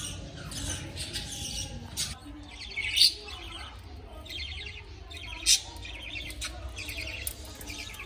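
Budgerigars chirping: many short, high, repeated calls throughout.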